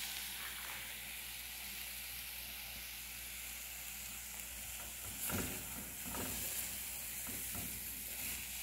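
Diced smoked sausage sizzling in a pot in its own rendered fat, with no oil added. From about five seconds in, a silicone spoon stirs and scrapes the pieces a few times.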